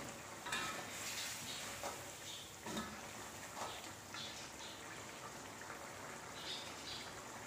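Thick tomato sambal simmering and bubbling in a metal kadai, with a metal ladle stirring and scraping through it in irregular clicks and scrapes over the first few seconds, then only the soft bubbling.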